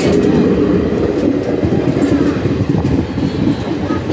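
Train running along the track, heard from on board: a steady, loud rumble of wheels and carriage with a few faint clicks.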